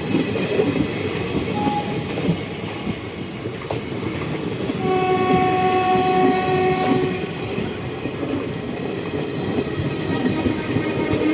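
Freight train rolling past with a steady rumble of wheels on the rails. About five seconds in, a locomotive horn sounds one steady note for about two seconds.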